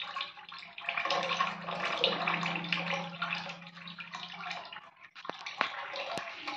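Tap water pouring into a basin of water, splashing steadily. A low hum runs through the middle, and a few sharp clicks come near the end.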